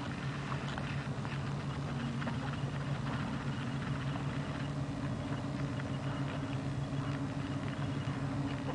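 An engine idling steadily with an even low hum, with faint scattered clicks over it.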